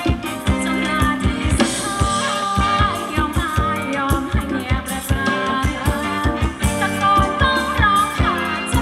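Band playing upbeat Thai ramwong dance music, with a steady drum beat about twice a second and a voice singing the melody.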